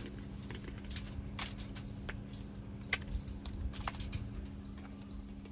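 Irregular light clicks and taps of a plastic seasoning shaker being opened and handled as seasoning is shaken out, over a steady low hum.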